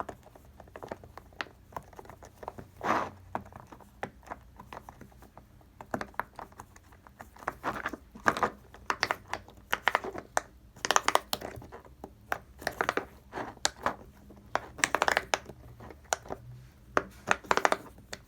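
Cake-shaped silicone pop-it fidget toy being pressed, its bubbles popping in quick, irregular runs of soft clicks that get busier and louder in the second half.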